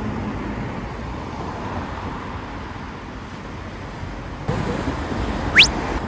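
Steady outdoor street noise, like road traffic, with a short high tone that sweeps sharply down in pitch about five and a half seconds in.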